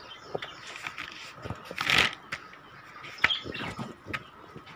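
Paper notebook pages being turned and handled: scattered rustles and flaps, with the loudest rustle about two seconds in and a sharp tap a little after three seconds.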